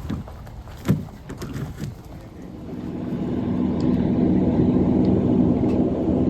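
A sharp knock about a second in and a few lighter clicks, then a vehicle engine running steadily, growing louder from about three seconds in.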